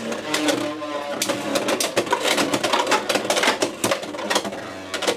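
Beyblade X tops spinning in a plastic stadium, clattering against each other and the stadium with a dense run of rapid clicks and knocks and a faint spinning whine. Driger Slash is spinning off-balance, which the tester points to as its imbalance.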